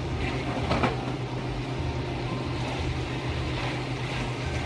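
Beef tapa sizzling as it fries in its own rendered fat in a pan, stirred with a spoon, with one brief scrape of the spoon just under a second in, over a steady low hum.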